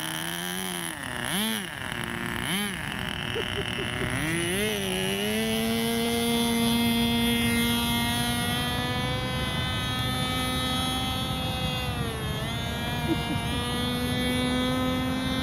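Radio-controlled model airplane's engine and propeller: a few quick throttle blips that rise and fall in the first few seconds, then held at high throttle in a steady, high-pitched drone as the plane flies. The pitch dips briefly about twelve seconds in, then rises back.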